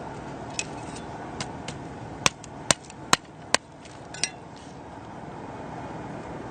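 A series of sharp knocks, like hard objects striking: four loud ones in quick succession, roughly half a second apart, near the middle, with a few fainter taps before and after. A steady rushing noise runs underneath.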